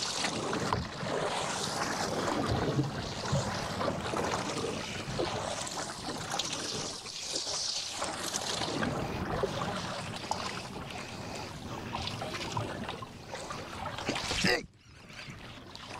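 Wind buffeting the microphone over water lapping and splashing against the hull of a drifting boat, with small scattered knocks. The wind noise drops away suddenly near the end.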